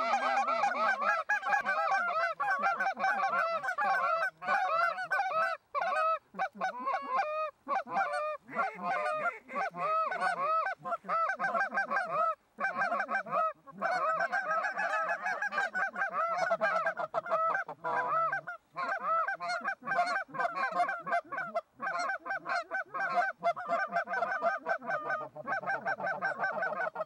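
Canada goose honks and clucks, rapid and nonstop, several voices overlapping in quick succession.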